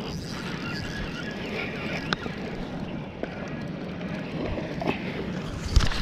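Action camera being handled and fitted onto a head mount, rubbing and knocking against the microphone, over a steady rush of wind and surf. Several sharp knocks, the loudest a low thump near the end.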